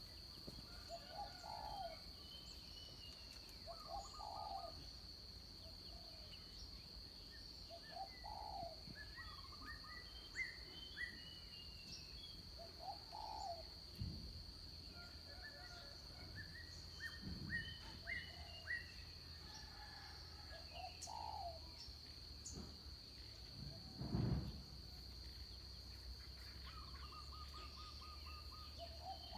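Birds calling: a short call repeated every few seconds, with scattered higher chirps, over a steady high-pitched tone. A brief low thump about 24 seconds in is the loudest moment.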